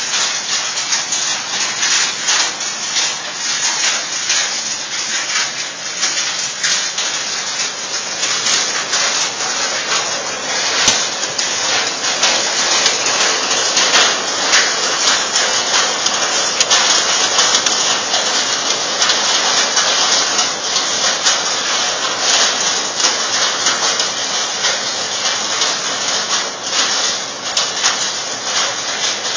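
Hail and heavy rain pelting down: a dense, steady hiss of rain packed with many sharp ticks of hailstones striking.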